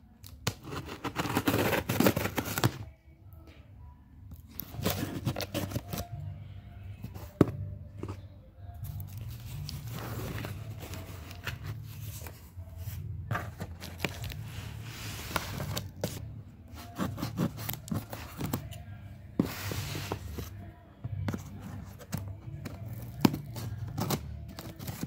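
A cardboard shipping box being opened by hand: scissors snipping and packing tape tearing off the cardboard, flaps pulled apart and kraft-paper packing crinkling, in several loud bursts. Soft background music plays underneath.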